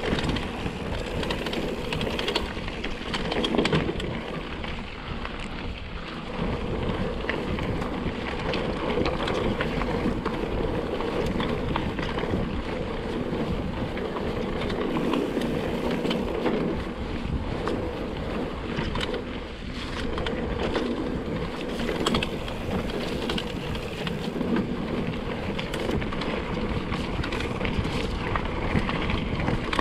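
Mountain bike descending a rough trail, heard from a GoPro action camera: steady tyre rumble and wind on the microphone, with frequent rattles and clicks from the bike over the bumps.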